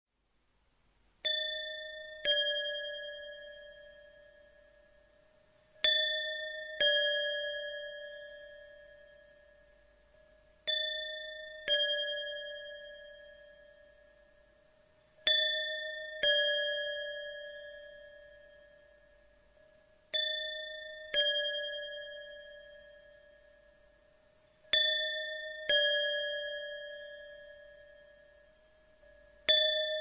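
Tibetan silver bells struck in pairs, the two strikes about a second apart, the second slightly lower in pitch; the pairs repeat about every five seconds, six times over with a seventh starting near the end. Each strike rings out clear and slowly fades.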